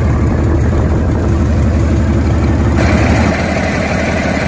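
Mercedes-Benz OM355 straight-six truck diesel idling steadily during a warm-up run, running smoothly with no missing. Its sound turns brighter about three seconds in.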